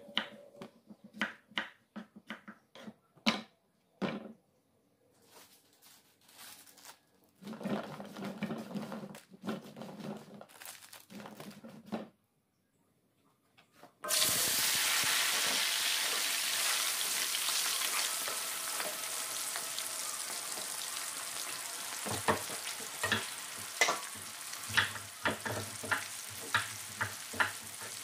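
A knife chopping round green eggplant on a wooden cutting board, a sharp cut every half second or so. About halfway, the eggplant pieces are tipped into hot oil and start sizzling, with a sudden, loud, steady hiss of deep frying; sharp knocks join it in the last few seconds.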